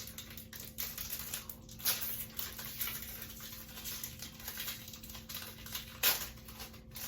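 Plastic snack wrapper crinkling and rustling as it is opened, a run of small crackles with two louder ones, about two seconds in and near the end.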